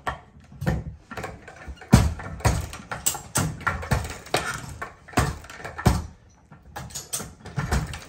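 Power carpet stretcher being levered to stretch carpet onto the tack strip, giving a string of irregular sharp clacks and knocks from its lever and head.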